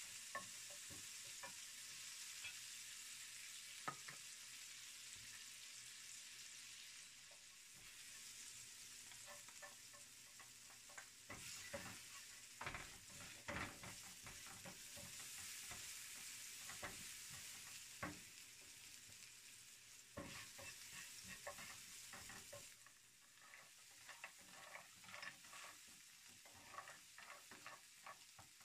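Food frying in oil in a nonstick frying pan, a steady sizzle, with a wooden spatula scraping and knocking against the pan as the food is stirred and turned. The sizzle drops quieter about three-quarters of the way through.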